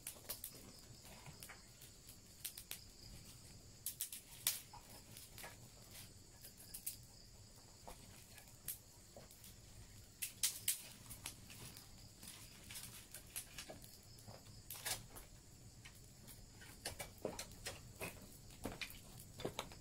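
Wood fire of dry sticks and twigs crackling, with irregular sharp snaps and pops, the loudest about four, ten and fifteen seconds in. A steady high insect drone, crickets or similar, runs beneath.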